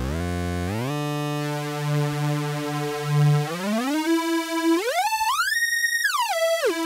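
Acid Rain Technology Chainsaw digital oscillator droning while its root pitch is stepped with the encoder one semitone at a time. It holds a low, buzzy tone, then climbs step by step to a high, thin tone about two-thirds through, and steps back down near the end.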